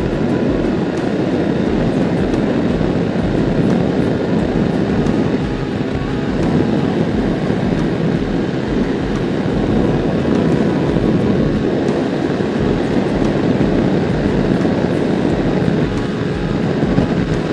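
Suzuki Smash 115 underbone motorcycle's single-cylinder four-stroke engine running steadily at high speed, mixed with a loud, even rush of wind and road noise.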